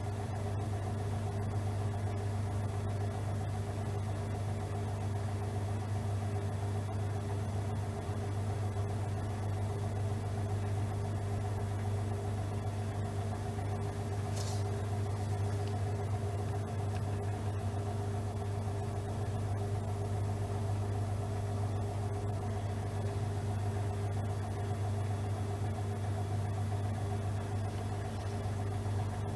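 Regal 8121 washing machine (brushless DC motor) running a 1200 rpm spin, a steady low hum with a few steady tones above it. There is one brief click about halfway through.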